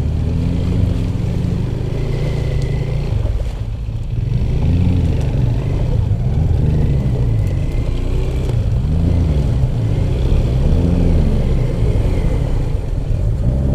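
Off-road vehicle engine running and then revved up and down again and again, its pitch rising and falling about once a second, after a steadier stretch in the first few seconds.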